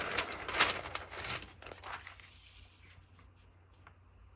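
Paper sheets rustling and sliding over a wooden desk as a written page is taken away and a blank lined sheet laid down, with a few sharp taps in the first second or so. The handling dies away after about two seconds, leaving faint room noise.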